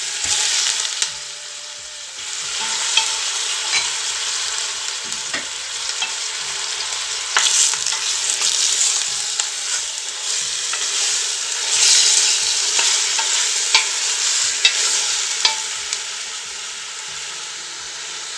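Chunks of veal and grated onion sizzling in oil in a stainless steel pressure cooker, being seared, while a wooden spoon stirs them and knocks against the pot now and then.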